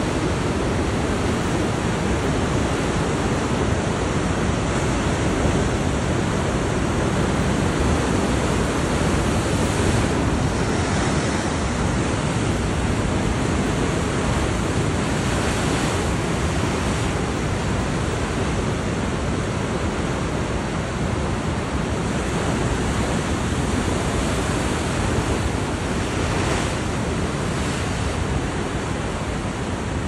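Heavy storm surf breaking and washing in, a steady loud rush of white water, with a few brief surges now and then and some wind on the microphone.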